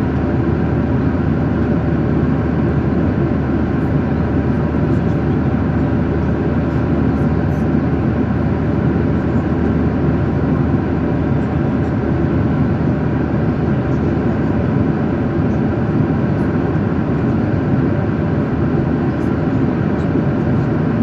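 Steady drone of an airliner's engines and airflow, heard inside the passenger cabin.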